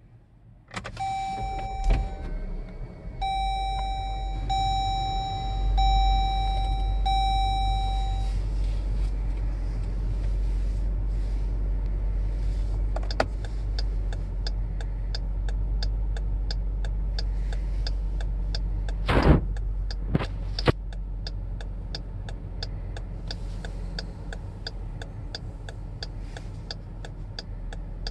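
2017 Jeep Grand Cherokee's dashboard chime sounds six times, each tone about a second long, over the engine idling. From about halfway through, the turn-signal relay ticks steadily about twice a second over the idle, with one brief loud noise partway through the ticking.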